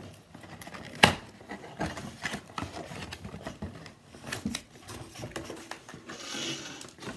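Unboxing noises as cardboard and plastic packaging is handled: scattered knocks and taps, the sharpest about a second in, and a short rustle near the end.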